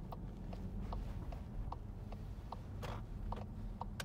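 Road noise inside a moving car: a steady low rumble, with a run of light ticks, two or three a second.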